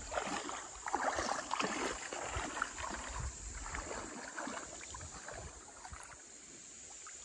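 Feet wading through shallow river water, sloshing and splashing over a rocky bottom. The splashes come thick at first and thin out, getting quieter toward the end.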